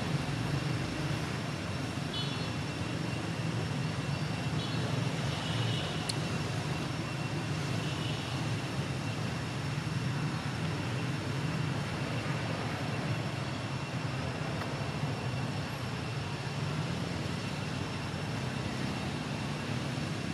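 Steady outdoor background noise: a low rumble with a thin, steady high whine over it, and a few short high chirps in the first six seconds.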